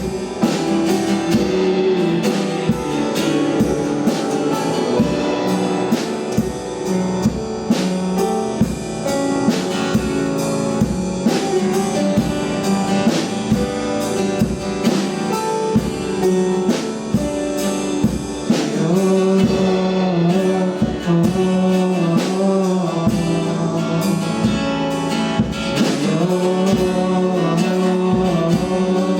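Church worship music: a band with drum kit and guitar, and a voice singing, playing steadily.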